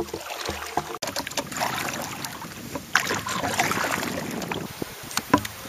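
Kayak paddle strokes, the blades dipping and splashing in the lake water.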